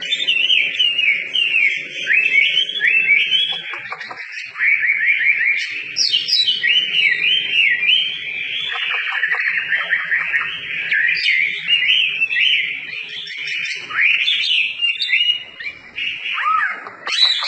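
Chinese hwamei singing a long, unbroken run of quick, varied whistled phrases.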